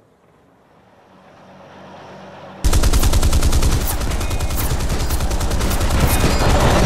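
Long burst of rapid machine-gun fire that starts suddenly about two and a half seconds in and keeps going, preceded by a faint sound slowly growing louder.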